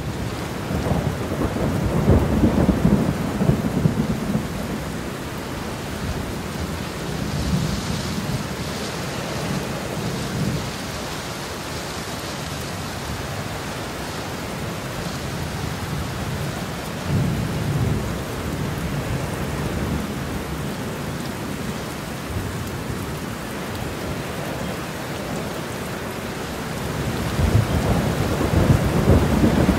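Stormy wind buffeting the microphone: a steady rushing noise with surges of low rumble, strongest about two seconds in, around eight to ten seconds, at about seventeen seconds and again near the end.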